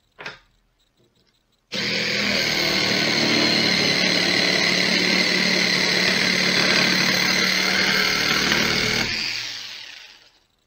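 Bosch jigsaw converted to run on an 18-volt DC drill motor and lithium-ion drill battery, sawing through a wooden board. It starts about two seconds in with a steady high whine, runs for about seven seconds, then winds down near the end.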